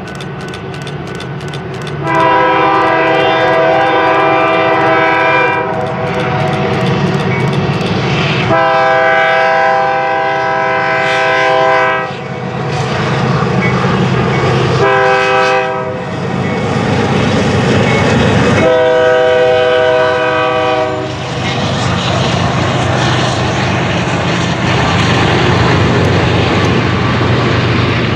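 A GE Dash 9 (C44-9W) diesel locomotive's multi-tone air horn sounding the grade-crossing signal: long, long, short, long. Under it the lead locomotives' diesel engines and wheels approach and pass, followed by the steady rolling noise of autorack freight cars going by.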